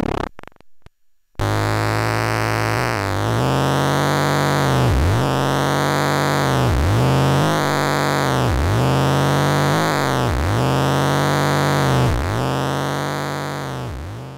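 Analog eurorack synthesizer: after a brief cut-out with a few clicks, a buzzy drone enters whose timbre sweeps down and back up about every two seconds. It fades out at the end.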